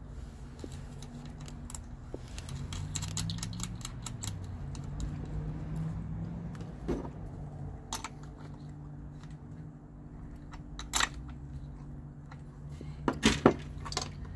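Light clicks and rattles of wire connectors and small metal parts handled while wiring up a diesel heater's leads at a battery, with a few sharper clicks partway through and near the end, over a steady low hum.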